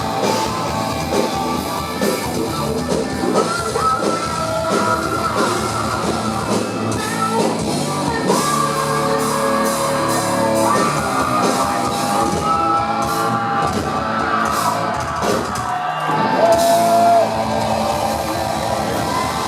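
Hard rock band playing live, with a singer's high yelled vocals and long held notes over guitar and drums. It peaks loudest about three-quarters of the way through.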